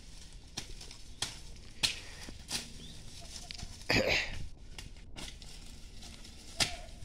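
Weeds and dry stalks being cleared from a garden plot: irregular snaps and crackles of vegetation, with a louder rustling crunch about four seconds in.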